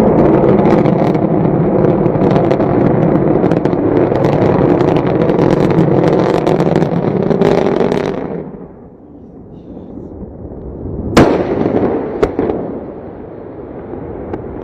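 Loud, dense crackling blasts for about eight seconds, then a fall to a lower rumble, with two sharp cracks about a second apart near the end.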